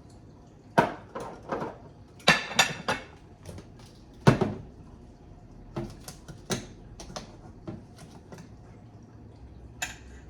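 Irregular clinks and knocks of kitchen containers and utensils being handled, a dozen or so sharp strikes, the loudest about four seconds in.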